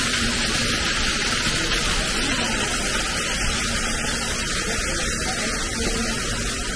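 A steady, even hiss with a low rumble beneath, unchanging throughout.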